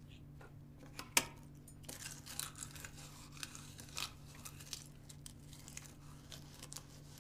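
Faint, irregular crackling and rustling: scattered small sharp clicks, the sharpest about a second in, over a low steady hum.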